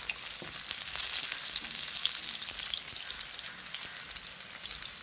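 Chicken burger patty shallow-frying in oil in a nonstick pan: a steady sizzle with many small crackles.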